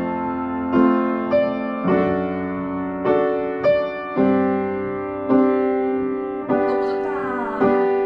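Piano playing a slow series of chords, each struck and left to ring out before the next.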